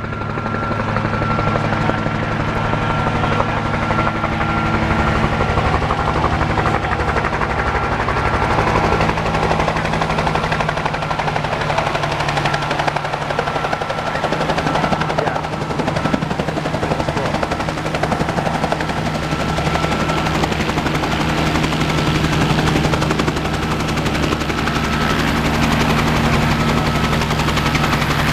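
Helicopter flying nearby: rotor blades beating rapidly in a steady loud drone, with a thin steady whine above it.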